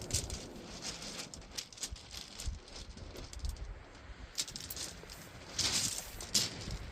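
Scattered small clicks and rattles of fishing tackle being handled, with a short louder rustling scrape near the end.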